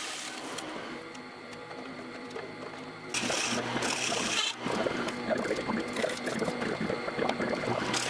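Milling machine spindle running while its cutter machines gauge holes in an aluminium dashboard plate. About three seconds in the sound gets louder and rougher, with bursts of hiss as the cutter bites into the metal.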